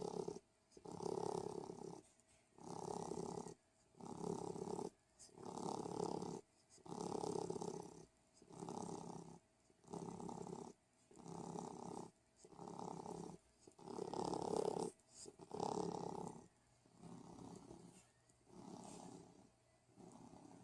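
Snoring: a steady run of noisy breaths, about one a second, each under a second long, growing fainter over the last few seconds.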